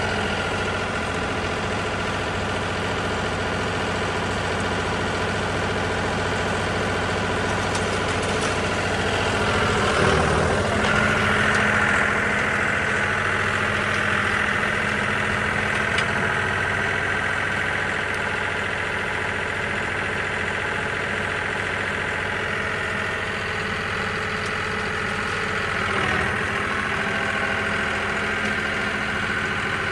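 Tractor engine running steadily under load while pulling an Allis Chalmers Roto-Baler, with the baler's machinery working along with it. The sound swells briefly about ten seconds in and again near the end.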